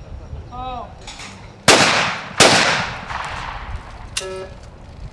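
Two skeet shotgun shots in quick succession, about three-quarters of a second apart, each with a trailing echo.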